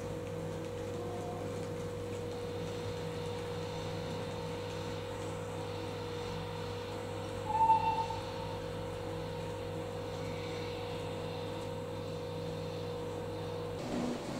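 A steady hum made of several held low tones, with one brief louder high note about halfway through; the hum cuts off abruptly near the end.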